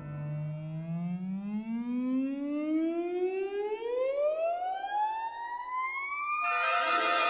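A single siren-like tone, rich in overtones, rises steadily in pitch for about six and a half seconds. Near the end it is cut off by loud orchestral music.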